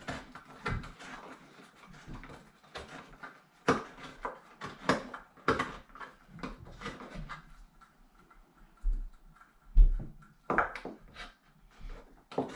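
Pliers squeezing and scraping around the rim of a small steel cat-food tin, flattening the sharp lip left by its pull-off lid: a run of irregular metallic clicks and scrapes, with a quieter pause a little past the middle.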